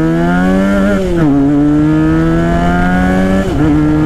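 Benelli 302R's 300 cc parallel-twin engine pulling hard under acceleration, its pitch climbing and dropping sharply at two upshifts, about a second in and about three and a half seconds in.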